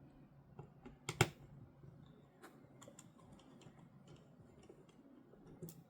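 Faint, scattered light clicks and ticks of a precision screwdriver and small screws being worked inside a MacBook, with one sharper click about a second in.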